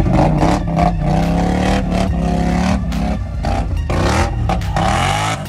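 ATV engine revving hard in repeated rising and falling bursts as its tires spin through thick mud, climbing out of a mud pit under heavy load, with scattered knocks and clatter.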